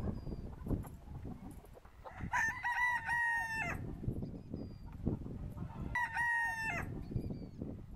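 Pavlovsky rooster crowing twice, each crow about a second and a half long, with a pause of about two seconds between them.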